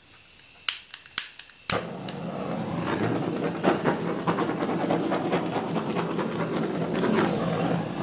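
Small handheld butane torch: two ignition clicks, then the flame catches and hisses steadily for about six seconds before shutting off just before the end. It is being swept over wet acrylic paint to pop air bubbles.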